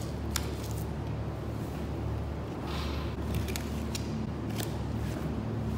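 Steady low mechanical hum of the cutting room, with scattered light clicks and taps as a butcher works a knife through a beef loin on a cutting table.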